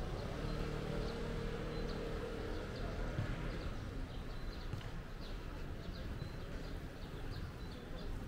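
Outdoor park ambience: short high chirps repeating about twice a second over a steady low background, with a low droning tone in the first few seconds.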